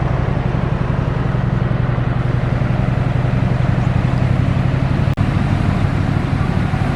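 Heavy diesel engine of road-construction machinery running steadily under load, with a deep, even hum. The sound drops out for an instant about five seconds in.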